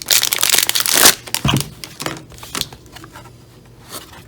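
Plastic shrink wrap being torn and crinkled off a speedcube's box: a dense rush of crinkling for about the first second, then a few scattered crackles that thin out.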